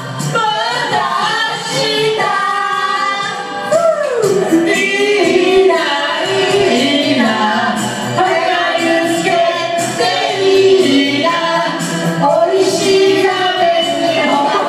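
A female voice singing a melodic song over musical accompaniment.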